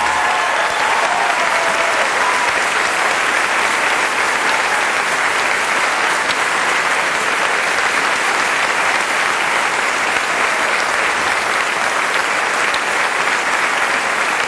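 Theatre audience applauding, a dense, steady clapping.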